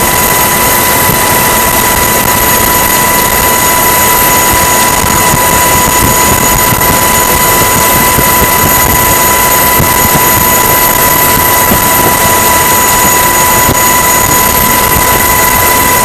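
Loud, steady mechanical roar with a constant high-pitched whine and its overtone, no change in pitch or level.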